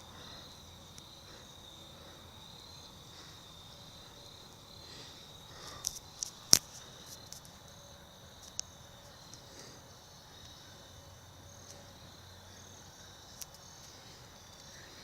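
Faint, steady high-pitched insect chirring. A few sharp clicks break through, a short cluster about six seconds in and single ones later.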